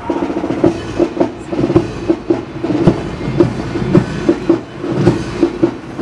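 Band music: a held, repeated brass-like note over drum beats about two to three a second.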